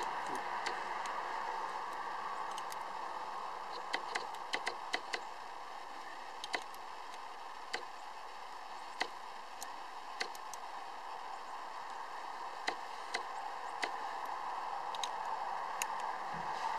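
Light, irregular metallic clicks of a small hex key working the cap screws of a Mile Marker manual hub lock as they are tightened by hand, over a steady hiss.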